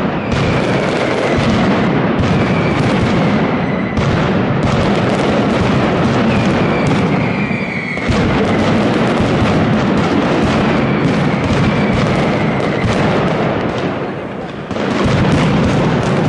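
Mascletà firecrackers going off in a dense, continuous barrage of loud, rapid bangs, with a few high whistles sliding down in pitch. The barrage dips briefly about four and eight seconds in, and again near the end before surging back.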